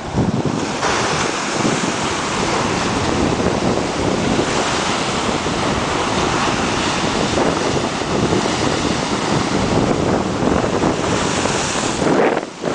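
North Sea waves breaking and washing up against a sea wall in a steady rush of surf, with wind buffeting the microphone.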